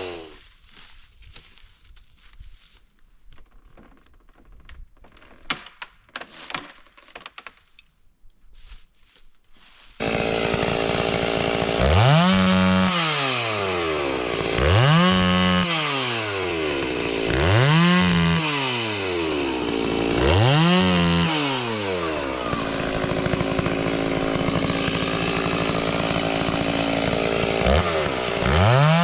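A quiet stretch with a few faint knocks, then a Stihl two-stroke chainsaw comes in about a third of the way through. It is revved up and let back down four times, then held at high revs for several seconds as in a cut into firewood, dropping and revving again near the end.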